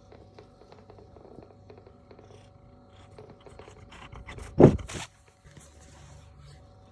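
Domestic cat giving one short, loud call a little past halfway, amid light scraping and rustling.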